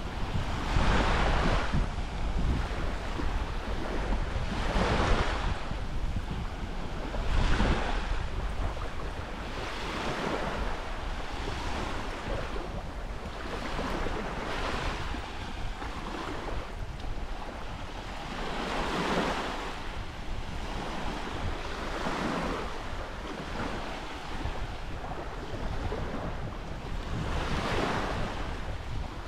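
Small sea waves breaking and washing onto a beach, swelling and falling away every few seconds, with wind rumbling on the microphone.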